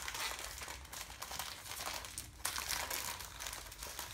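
Printed plastic-foil HeroClix blind-bag booster packs crinkling and rustling as they are handled and torn open, in an irregular stream of crackles with a brief lull about two seconds in.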